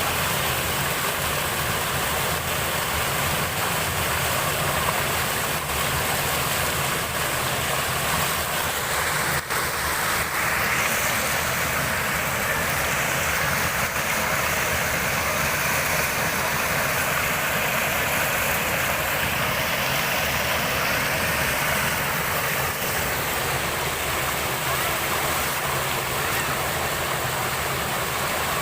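Waterfall's rushing water, a steady loud roar that turns brighter and hissier about ten seconds in.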